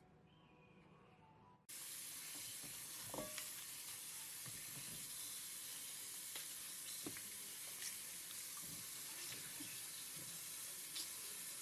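Water running from a tap into a sink, with light knocks and clicks from things being handled under the stream. The water comes on suddenly about two seconds in.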